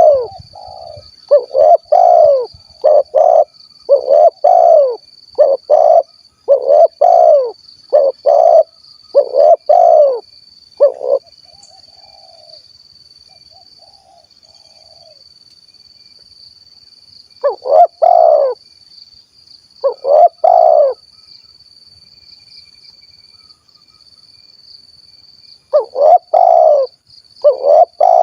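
Spotted dove (tekukur) cooing in the 'kuk 1' song type: a run of short, rounded, low coos in quick succession, breaking off after about eleven seconds, two single coos near the middle, then the run starting again near the end.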